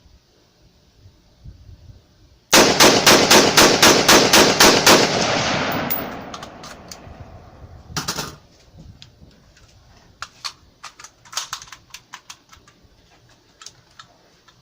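A WK180C .223 rifle fired in a rapid string of about a dozen shots, roughly five a second, with the echo trailing off for a second or so afterwards. A sharper, quieter double knock follows a few seconds later, then light scattered clicks of handling.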